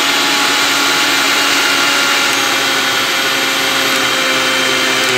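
Mixer grinder's universal motor running at its highest speed setting, a steady whine over a hiss.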